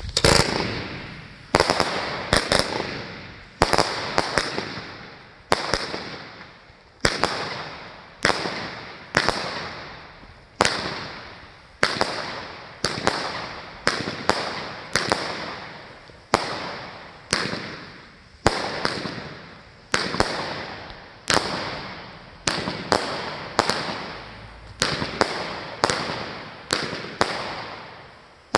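Consumer firework cake (multi-shot battery) firing shot after shot, about one a second and sometimes two in quick succession. Each shot is a sharp bang followed by a fading crackle and hiss.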